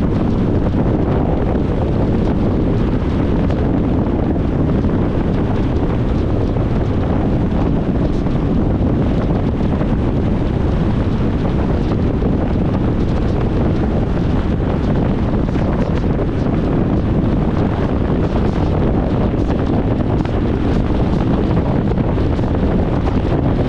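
The noise of a car ride: a steady, low rumble that does not change.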